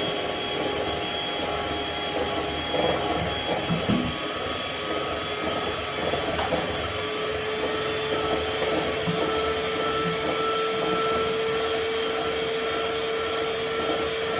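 Electric hand mixer running steadily, a continuous whirr with a faint steady whine.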